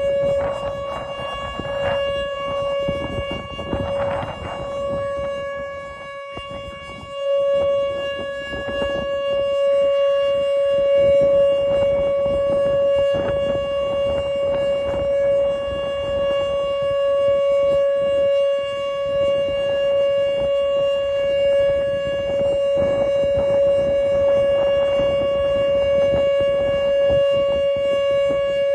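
Outdoor tornado warning siren sounding a steady, unwavering alert tone during its weekly test, dipping in loudness about six seconds in and coming back strongly a second later. Wind buffets the microphone underneath.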